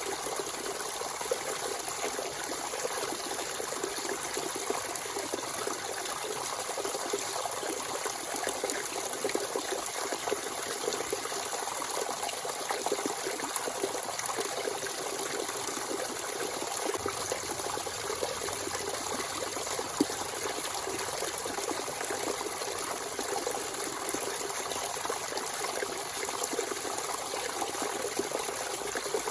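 Natural spring water running and trickling steadily, a constant splashing flow. One sharp click about twenty seconds in.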